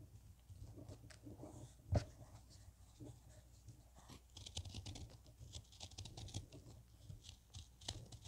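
Hands crumbling packed powder, then a small knife cutting and scraping into a compacted block of it, with soft crunching and crisp crackles that grow busier about halfway through. A dull thump about two seconds in.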